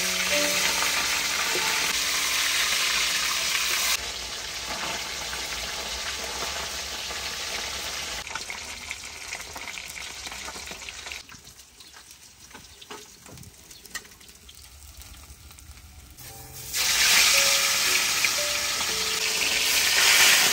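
Whole fish frying in hot oil in a wok, a steady sizzle. It eases off after about four seconds, dies down low for a few seconds in the middle, and comes back loud near the end.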